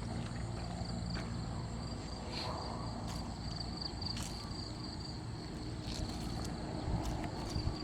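Steady night insect chorus, crickets holding a thin high-pitched trill, over a low rumble with a few faint scattered clicks.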